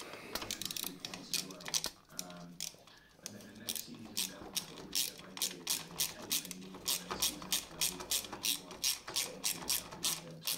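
A small hand ratchet clicking as a bolt is turned. The clicks are scattered at first, then from about four seconds in settle into a steady run of about three to four a second.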